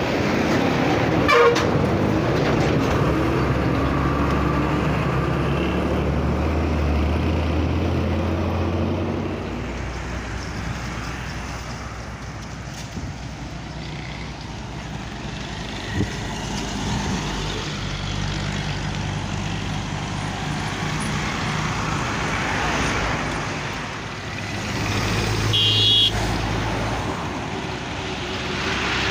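Heavy diesel trucks passing close by on a highway, their engines running with a loud low drone for the first several seconds, then lighter traffic noise. A horn toots briefly about a second and a half in and again near the end.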